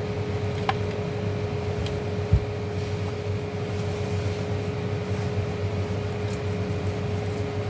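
A steady background hum with a constant mid-pitched tone, and handling noises from the emergency light being taken apart for its battery: a faint click about a second in and a dull thump a little after two seconds.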